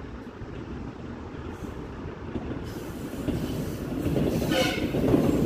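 Metro train approaching along an open-air curve, its rumble growing steadily louder, with a brief wheel squeal about four and a half seconds in.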